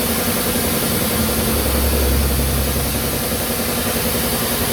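An engine running steadily in the background, with a low rumble that swells for about a second and a half midway.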